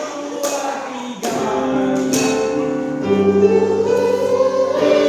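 Church choir singing, holding chords of several voices together that change every second or two.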